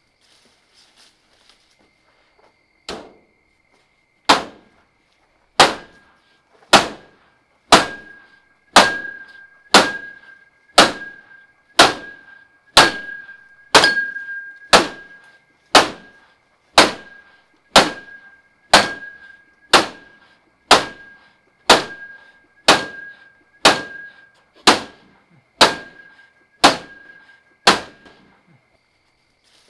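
A baseball bat striking a stainless steel mesh window security screen again and again, about one heavy blow a second, two dozen in all, each with a clang and a short metallic ring. The blows are a forced-entry test of the screen.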